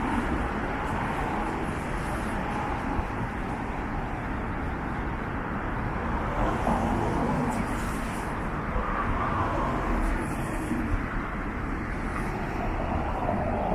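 City street traffic: a steady hum of road noise from passing cars, with a few cars swelling louder as they go by.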